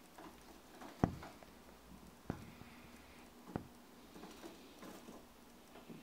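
Small cage birds pecking and hopping on a seed-strewn floor: three sharp taps about a second and a quarter apart, with faint pattering and ticking between them.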